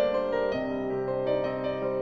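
Instrumental background music with held keyboard notes changing every half second or so.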